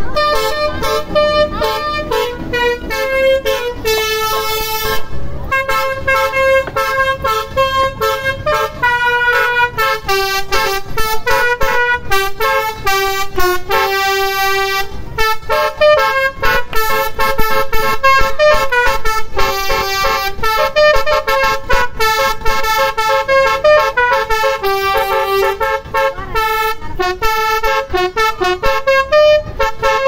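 Telolet basuri multi-trumpet vehicle horn playing a fast melody of short notes that step quickly up and down in pitch.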